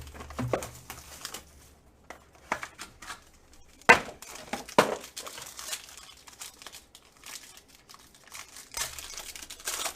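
Plastic wrapping crinkling and tearing as a trading card box is opened, in irregular crackles with two sharper rips about four and five seconds in and a dense stretch of crinkling near the end.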